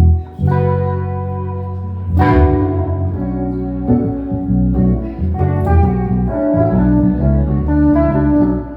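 Band jamming instrumental music, with guitar and organ-style keyboard chords over a bass line. The bass holds low notes at first, and a cymbal crash comes about two seconds in.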